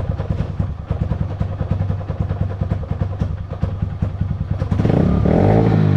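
Honda Fan's single-cylinder four-stroke engine idling with a steady, fast beat, running without choke after its carburetor was cleaned and refitted. About five seconds in the revs briefly rise and fall, louder.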